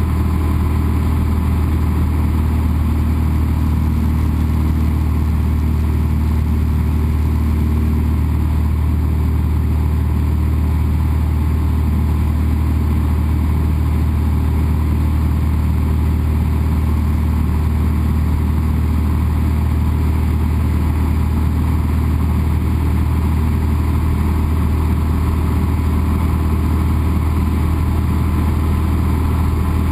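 Cessna 172's piston engine and propeller running steadily in flight, a constant low drone heard from inside the cabin.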